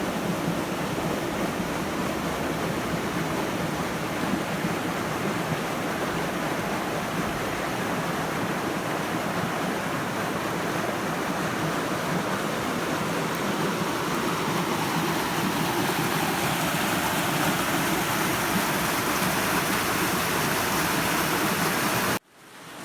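River water pouring over rocks in a small waterfall into a pool, a steady loud rush. It cuts off suddenly near the end.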